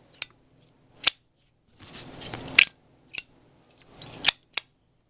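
Solid brass Zippo lighter lid clicking open and snapping shut, about six sharp metallic clicks in roughly three pairs. Some clicks carry a bright, high ringing "ding" from the brass case.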